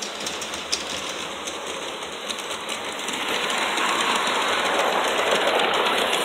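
LGB G-scale model train running along its track, the electric motor and wheels making a steady rattling run that grows louder about three seconds in as the train passes close by.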